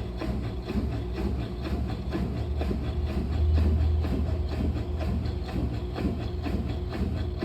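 Brastemp Clean washing machine running a delicate wash cycle: a steady low motor hum with an irregular churning texture, swelling for about a second midway.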